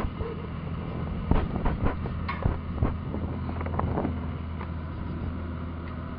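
Wind buffeting the microphone over a steady low motor-like hum, with a scattering of short clicks and knocks in the first few seconds.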